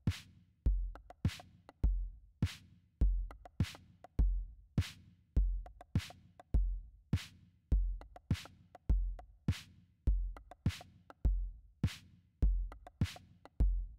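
Background music: a steady drum-machine beat, a low kick and a sharp snare alternating a little under two beats a second.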